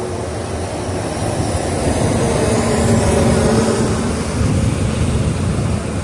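City traffic on a wide avenue: a heavy vehicle's engine drone, most likely a city bus, swelling to its loudest about halfway through and easing off a little after.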